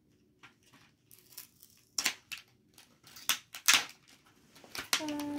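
Small cardboard box being opened by hand: scattered rustles with sharp snaps and tearing of the card flap, the loudest about two seconds in and again around three and a half seconds.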